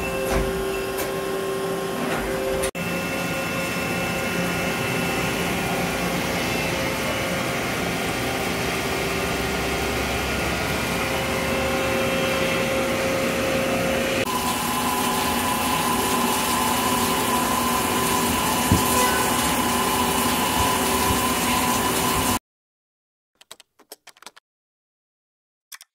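Mazak Integrex 40 CNC turning center running under power: a steady whirring hum with several steady tones from its motors and pumps, which shift about fourteen seconds in. It cuts off abruptly near the end, leaving near silence with a few faint swishes.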